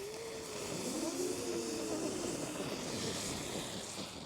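Engine drone of a passing vehicle, its pitch rising at the start and then slowly sliding down.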